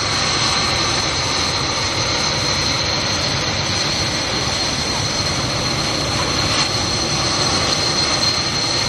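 Mitsubishi T-2 jet trainers taxiing past, their Adour turbofan engines running with a steady high whine over a continuous rush.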